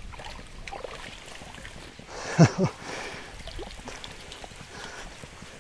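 Water splashing as a hooked silver carp is scooped into a landing net and lifted from the water. One loud double splash comes about halfway through, with small splashes and clicks around it.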